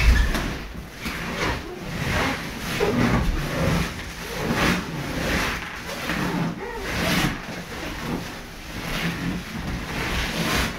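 Inflated latex balloons rubbing and squeezing under a person's weight as they shift on a pile of them, in a run of uneven rustling swells, with a low bump right at the start.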